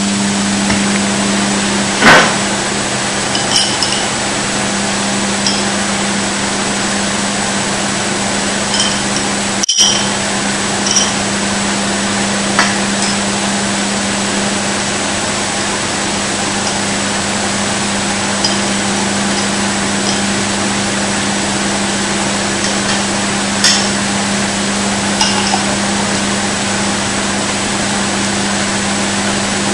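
Microwave oven running with a loud steady hum, heating a wet sponge. Sharp clicks and pops come at irregular intervals over the hum, the loudest about two seconds in.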